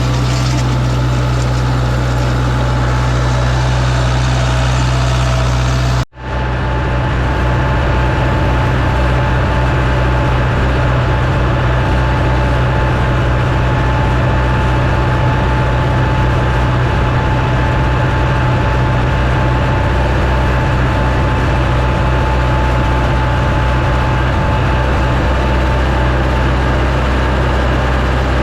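International 474 tractor engine running steadily while pulling a hay tedder, with a constant low drone. The sound drops out for an instant about six seconds in, then carries on unchanged.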